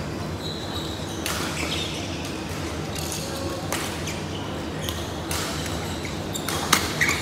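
Badminton rally: about six sharp hits of rackets striking a shuttlecock, spread a second or two apart, the loudest near the end, over the steady hum and chatter of a busy badminton hall.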